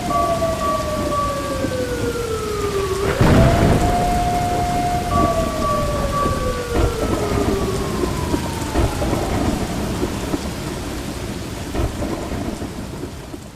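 Rain and a thunderstorm sound effect: steady falling rain with a loud crack of thunder about three seconds in. Over it a tone holds, then slides slowly down, twice, and the whole effect fades out at the end.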